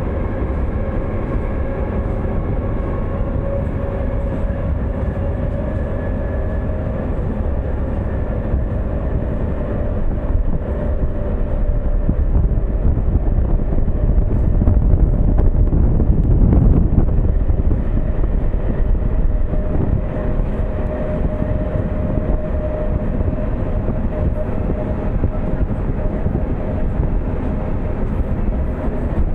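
Train running along the track: a continuous low rumble with a steady tone over it, growing louder about halfway through, then easing.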